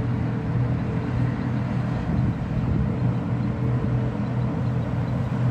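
Steady drone of road traffic on a toll-road flyover, a constant low hum under an even wash of tyre noise.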